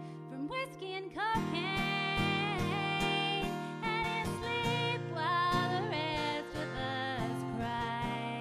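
A woman singing held, gliding notes over a strummed acoustic guitar.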